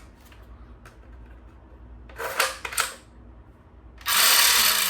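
Toy gun being worked: a quick cluster of plastic clicks about two seconds in, then a loud, hissing, crackling burst of its shot sound about four seconds in, lasting around a second.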